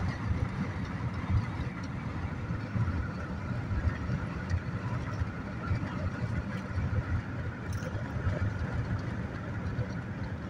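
Steady road and engine noise inside a moving car's cabin, a continuous low rumble without change.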